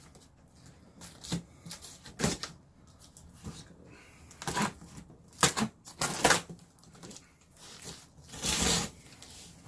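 A cardboard box being opened and handled by hand: a string of sharp knocks and rustles from the flaps and packaging, with a longer rustle near the end.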